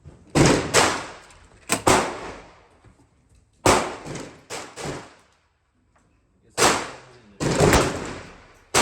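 Gunshots, about ten in irregular succession, some in quick pairs, each sharp crack followed by a short echoing tail.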